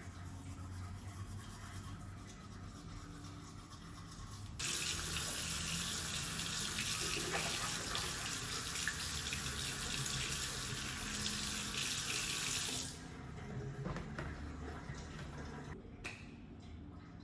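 A water tap is turned on and runs into a sink for about eight seconds, then is shut off abruptly. A quiet room hum is heard before and after.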